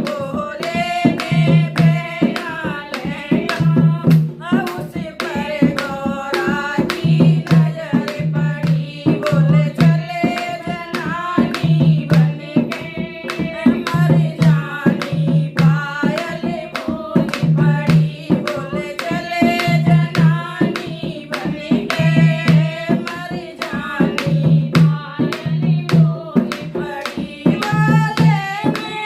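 A Hindi devotional song (bhajan): a voice singing over a steady, regular hand-drum rhythm.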